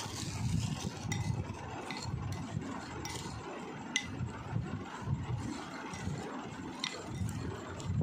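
A plastic spoon stirring and tossing dry chaat (fried gram-flour pieces, chickpeas and crisp papdi) in a glass bowl. It makes an irregular rustling scrape with a few sharp clinks of the spoon against the glass.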